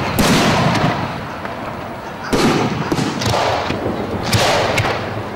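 Aerial fireworks bursting: about five sharp bangs spread over a few seconds, the loudest near the start and about two seconds in, each trailing off as it fades.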